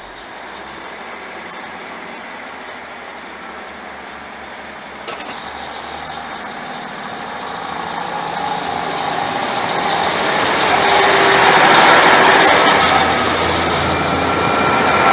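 Class 150 Sprinter diesel multiple unit pulling away from the platform, its underfloor Cummins diesel engines running and growing steadily louder as the carriages pass close by.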